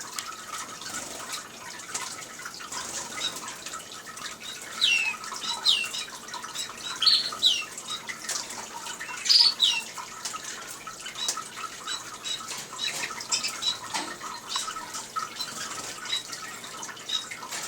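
A small decorative water fountain trickling and dripping steadily while caged canaries and finches chirp. Several louder, sharply falling calls stand out in the middle stretch.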